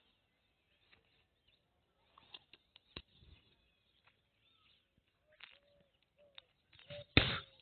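Scattered metal clinks and knocks from air-compressor disc valve plates being handled and set down on a concrete floor, the loudest clatter near the end. From about halfway, a bird calls in the background with short repeated notes.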